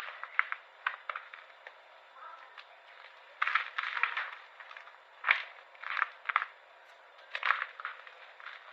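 Brittle pink squares being crushed, giving crisp crackling crunches in short clusters every second or two, with quieter gaps between.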